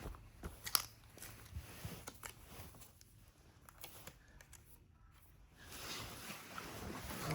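Faint handling noises: scattered light clicks and rustles, with one sharper click about a second in.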